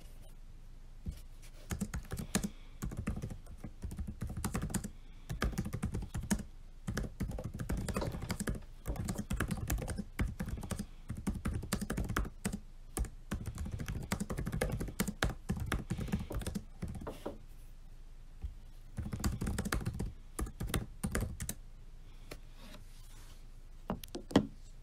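Typing on a laptop keyboard: fast runs of key clicks with brief pauses, a short gap two-thirds of the way through, then another burst and a few scattered taps. One louder knock near the end.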